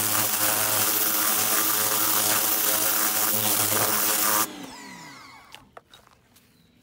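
Pressure washer spraying a mud-caked dog-proof trap: a loud, steady hiss of the water jet over the hum of the running pump. About four and a half seconds in, the spray cuts off and the motor winds down in a falling whine.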